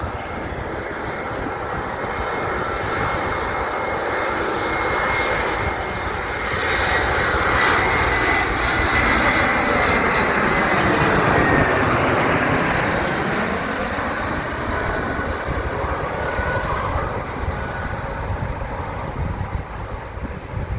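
A jet airliner passing close by. Its engine noise swells to a peak about halfway through and then fades, with a high whine that drops a little in pitch and a sweeping, phasing whoosh as it goes over.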